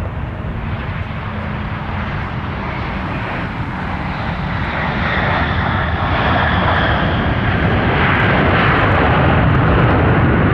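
Jet airliner's engines running, the noise growing steadily louder over several seconds as the aircraft draws closer, with a faint high whine partway through.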